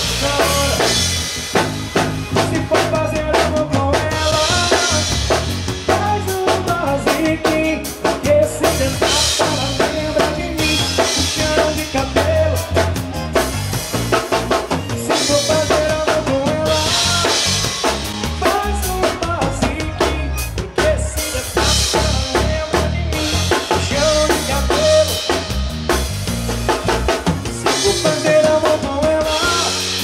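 A live band's instrumental passage with no singing: a drum kit keeps a steady beat of kick and snare under bass and a melody line.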